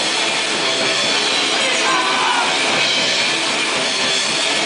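Live punk rock band playing loud and without a break: full drum kit and amplified instruments in a dense, steady wall of sound.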